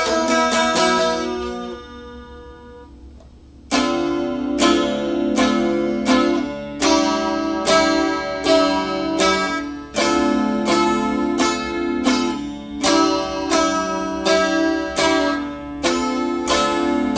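Music led by guitar. Chords ring out and fade to a brief lull about two seconds in, then steady rhythmic strumming comes back in about four seconds in.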